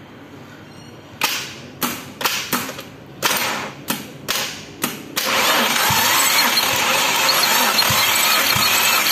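Starter motor cranking a Perodua Myvi engine with a compression gauge fitted in place of a spark plug. The starter cuts in about five seconds in and runs steadily, with a low thump repeating at each compression stroke. Before it, several short bursts of hissing noise.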